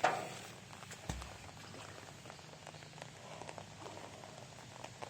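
Steady rain falling, with many small drop ticks. A sharp knock opens it, and a low thump comes about a second in.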